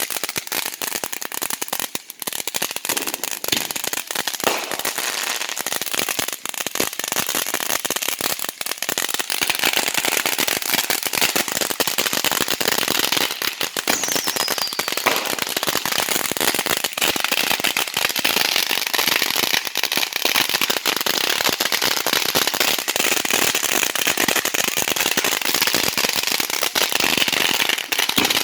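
Consumer fireworks crackling: a dense, continuous run of rapid sharp pops that grows thicker about a third of the way in.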